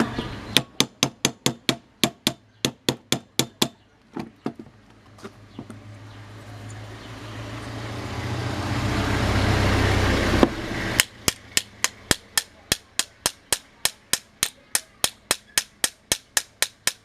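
A hammer tapping metal in quick, even strokes, about four a second, in two runs. Between the runs a rushing noise with a low hum builds up for several seconds and cuts off suddenly.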